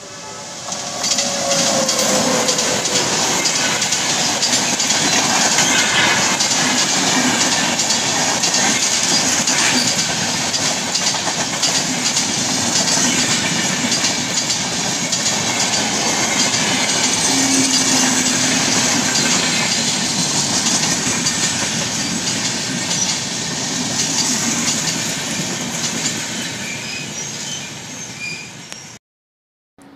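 Electric-hauled express passenger train passing close at full speed. It is a loud, steady rush of steel wheels on rail with clickety-clack over the rail joints. The noise swells in about a second in and cuts off suddenly near the end.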